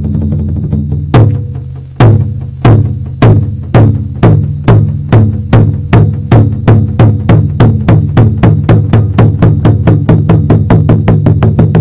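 Music: drum beats that start about a second in, slow at first and speeding up steadily to about four a second, over a steady low sustained tone.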